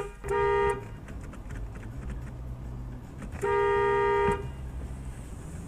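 Car horn honking in steady, flat-pitched blasts: a short one at the very start, a half-second one just after, then a longer one of about a second a little past the middle, over a low rumble.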